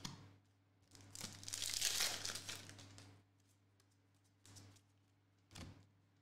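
Crinkling and tearing of a trading-card pack wrapper being opened, a burst lasting about two seconds, followed by a couple of soft taps as the cards are handled.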